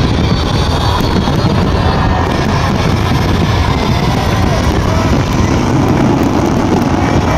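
Aerial fireworks display going off in a dense, continuous barrage: many shells bursting at once in a steady loud rumble of booms and crackles.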